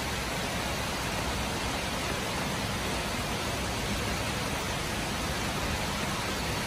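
Heavy rain falling steadily, an even wash of noise.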